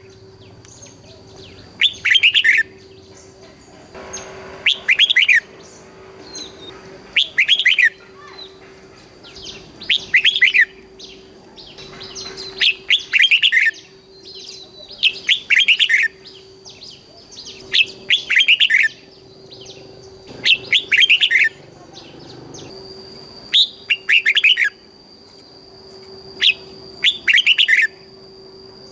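Red-whiskered bulbul singing its short, loud, warbled song phrase over and over, about once every two and a half seconds. A faint steady high whine and low hum run underneath.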